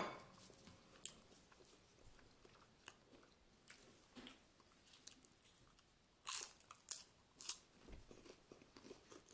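Saltine crackers being bitten into and chewed: faint, scattered crunches, with three sharper crunches in quick succession a little past the middle.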